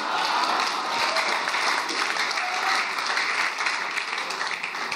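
Congregation applauding, a dense wash of clapping that holds steady and starts to fade near the end.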